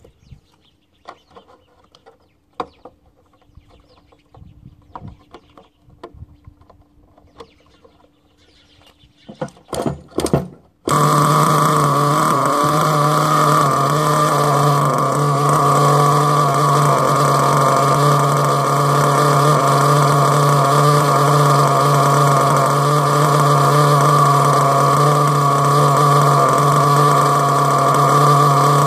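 Small nitro glow-plug engine of an HPI Savage RC monster truck: a few faint clicks of handling, then a few loud pull-start strokes about ten seconds in. The engine then catches and runs at a steady, loud idle, left running to warm up so it does not stall.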